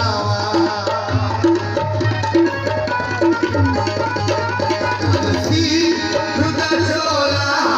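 Punjabi folk music playing loud, with a steady hand-drum rhythm under a melody line and no singing.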